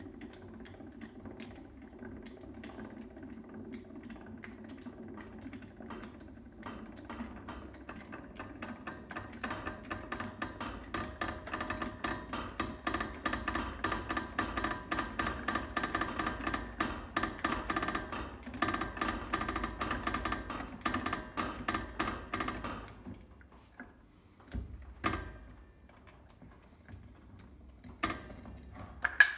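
Fiat 500 L's post jack being cranked down by hand: a fast, steady run of metallic clicks over a low grind from the turning screw, growing louder, as the car is lowered back onto its wheel. The cranking stops about three-quarters of the way through, and a few separate knocks follow.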